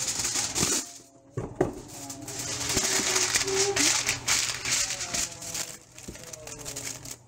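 A sheet of aluminum foil crinkling as it is spread and pressed down over a foil baking pan, with a short pause about a second in.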